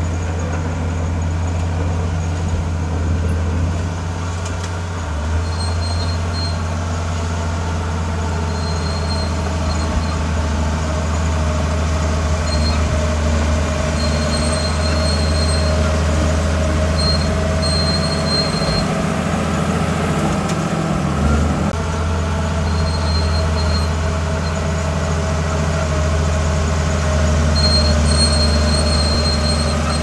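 Bulldozer's diesel engine running steadily under load as it pushes sand and rock, with short high-pitched squeals of its steel tracks coming and going. The engine note dips briefly about two-thirds of the way through.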